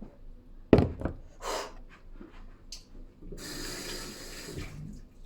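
A sharp thump about a second in, then water running from a tap for about a second and a half.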